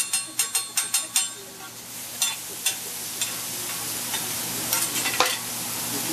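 Metal hibachi spatula clacking rapidly on the steel teppanyaki griddle, about five strikes a second, for the first second. Then vegetables sizzle in a steady loud hiss on the hot plate, with an occasional scrape or tap of the spatula.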